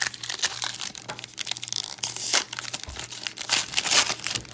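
Trading card pack wrapper being torn open and crinkled, with the cards inside rustling as they are pulled out.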